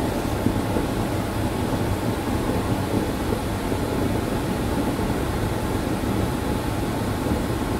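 Steady room noise: an even rush of air with a constant low hum underneath, no distinct events.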